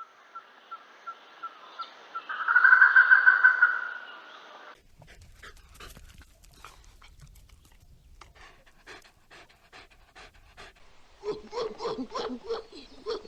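Animal sounds, most like a dog panting, in a few short clips: a loud high call about two seconds in, scattered clicks after an abrupt cut, then quick rhythmic pulses near the end.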